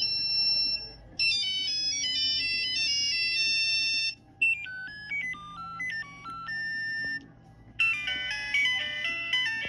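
Nokia phone ringtones played one after another: short melodic phrases of electronic tones, each snippet a few seconds long with its own timbre, cut off abruptly before the next begins. The last snippet is fuller, with several notes sounding at once.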